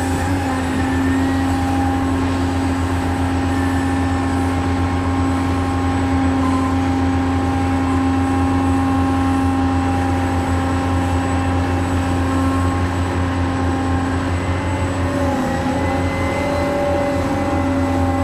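Remote-control model excavator running: a steady engine-like drone with a steady whine over it, shifting a little in pitch about fifteen seconds in.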